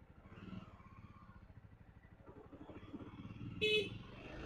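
Jawa Perak's single-cylinder engine running faintly at low speed as the bike rolls along in first gear. A short horn beep near the end is the loudest sound.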